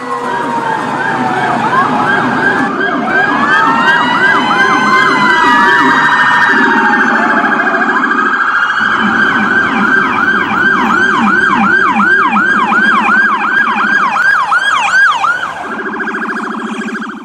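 Electronic emergency-vehicle siren with several tones layered. A slower wailing sweep gives way to a fast yelp repeating about three times a second, over a lower warbling tone and a buzzing horn tone that switch on and off in blocks. It cuts off suddenly at the end.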